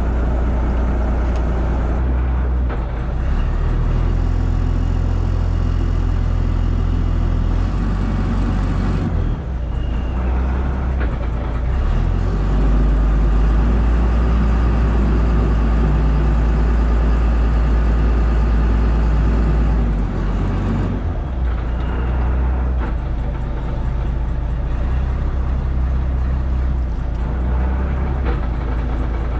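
A heavy engine running steadily with a low drone, its pitch and level shifting a few times.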